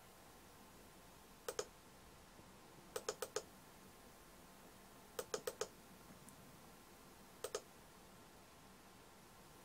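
Computer mouse clicks, heard as double-clicks while browsing a file dialog. A pair comes about one and a half seconds in, a quick run of four follows at about three seconds and another at about five, and a last pair comes near the end, over faint steady hiss.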